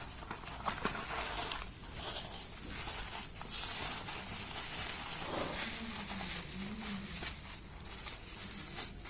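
Plastic bubble wrap crinkling and rustling as hands pull it from a cardboard box and unfold it, with scattered small crackles.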